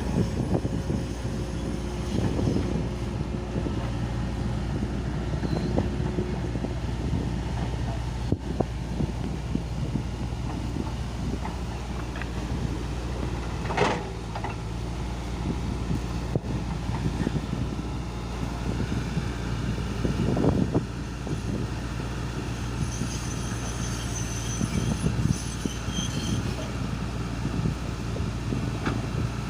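Hitachi excavator's diesel engine running steadily, with a few sharp knocks and clanks from the machine's work.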